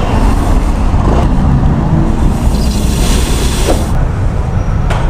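Motorcycle running at low speed, with heavy low rumble on the bike-mounted camera's microphone; a sharp click near the end.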